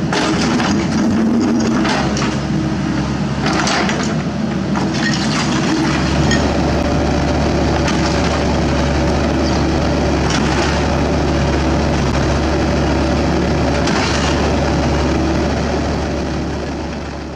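Sany SY75 mini excavator's diesel engine running steadily, with its bucket breaking and scraping concrete rubble: sharp cracks and clatters of concrete chunks several times over. The engine note shifts about six seconds in, and the sound fades out near the end.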